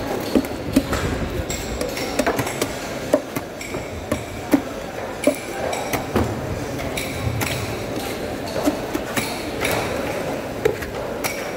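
Large butcher's knife cutting into a big fish on a wooden chopping block: irregular sharp clicks and knocks of the blade against bone and board, some louder than others.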